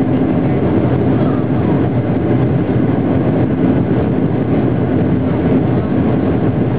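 Steady, loud cabin noise of a Boeing 737-800 during takeoff, heard from a window seat: its CFM56 jet engines running at high thrust, with a steady low hum through the fuselage.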